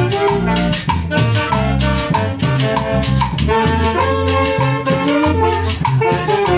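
A Peruvian orquesta band playing: brass horns carrying a melody in harmony over a drum kit that keeps a steady beat.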